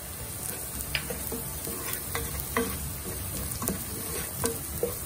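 A plastic slotted spoon stirring diced onion and garlic frying in oil in a nonstick pot, the ground achiote just stirred in. Short scrapes and taps against the pan come roughly every half second over a steady low sizzle.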